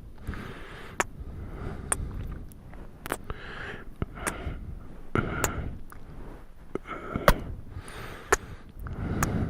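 Close-miked kissing and mouth sounds: irregular sharp lip smacks, about one or two a second, with soft breaths or sniffs between them.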